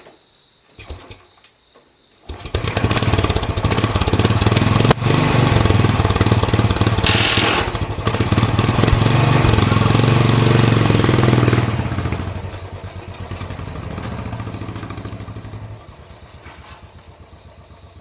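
Motorcycle engine starting about two seconds in and running loudly, then fading away as the bike rides off.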